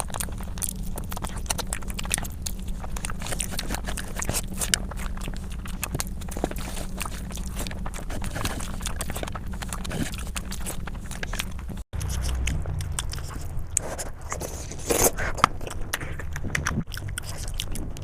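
Close-miked chewing and biting of food: dense wet mouth clicks and small crunches over a low steady hum, broken by a brief cut about twelve seconds in.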